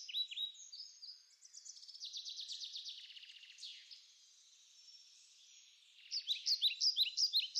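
Birdsong: repeated short down-slurred chirps, a rapid trill from about one and a half to three and a half seconds in, a brief lull, then a run of louder chirps near the end.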